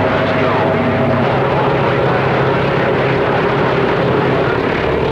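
CB radio receiving on channel 28 under skip (DX) conditions. A steady wash of loud static carries several whistling heterodyne tones from overlapping distant carriers, whose pitches shift about a second in and again near the end.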